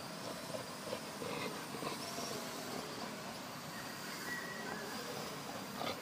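Steady outdoor background noise, like distant traffic, with a few faint short sounds; no barking is heard.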